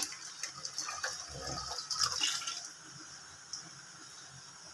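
Coconut milk poured from a glass bowl through a plastic strainer of grated coconut into a metal pan, splashing and trickling for a couple of seconds before dying away. A sharp knock comes right at the start.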